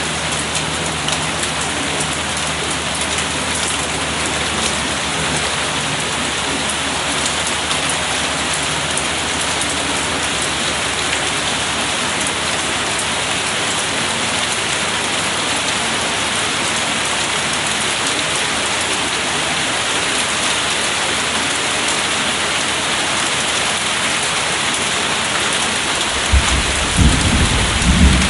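Steady rain falling, with a low roll of thunder building about two seconds before the end.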